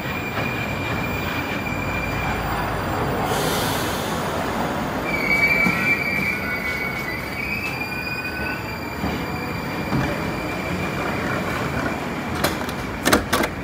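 Moscow Metro train pulling into a station, running with a steady rumble and wheels squealing: a thin high whine, swelling about five seconds in. A few sharp knocks near the end.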